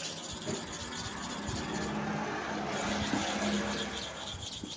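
WMACK hair-clipper blade rubbed by hand on a super hard manual sharpening stone, a steady scraping rub with no clear break between strokes.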